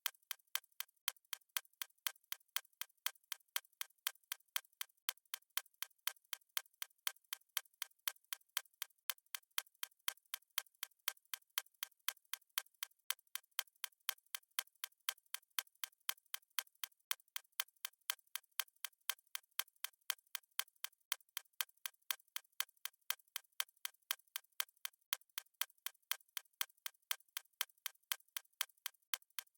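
Clock-style ticking sound effect of a countdown timer: a steady, even run of sharp, light ticks.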